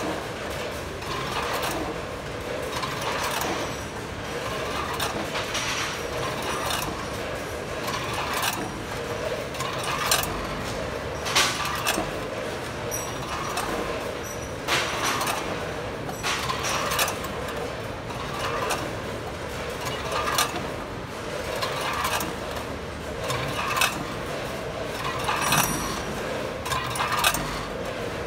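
Multihead weigher running on candy: the vibrating feed pans rattle the candies along while the weigh-hopper gates clack open and shut, letting the candies clatter through in a cycle of about once a second.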